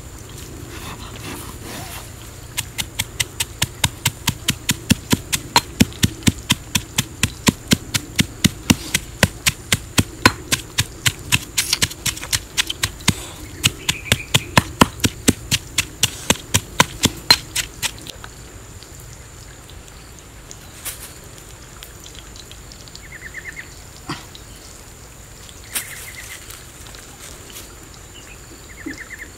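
Stone pestle pounding in a stone mortar: sharp, regular knocks, about three a second, for some fifteen seconds. The pounding then stops, leaving only a few scattered taps.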